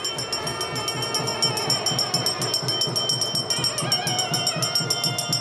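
Temple ritual music: a fast, even jingling and rattling percussion beat, about ten strokes a second, with a steady high ringing tone held over it.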